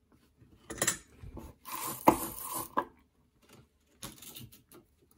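Handling noise from fingers working a cloth-covered pickup wire and parts on a metal-shielded guitar pickguard: irregular scraping and rustling, with a sharp click about two seconds in and another short rustle near the end.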